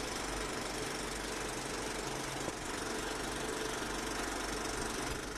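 Film projector sound effect: a steady whir with a fast, even clatter.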